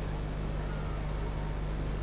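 Steady hiss with a low, even mains hum and no music playing: the background noise of an old videotape recording in a pause between the band's drum strokes.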